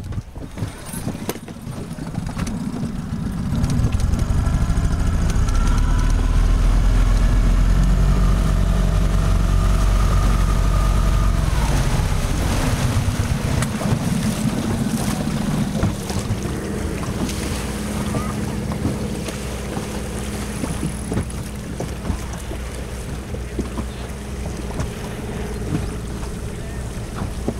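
Small boat outboard motor running steadily, louder for several seconds after about four seconds in, then settling lower, with wind on the microphone.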